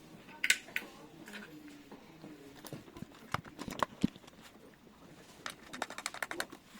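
Door lock hardware being handled and fitted: scattered sharp clicks and a few duller knocks, then a quick run of clicks near the end.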